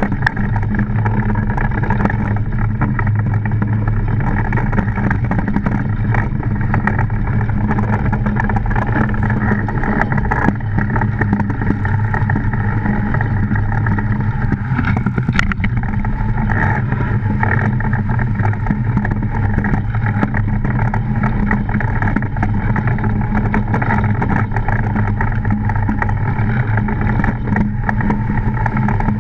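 DN iceboat running fast over ice: the runners on the ice make a loud, steady rumble carried through the wooden hull, with scattered sharp clicks from the ice surface.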